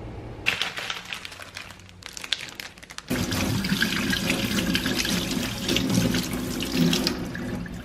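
Water running from a kitchen tap into a sink. It starts about half a second in and becomes much louder about three seconds in, as the flow opens up or hits something in the sink.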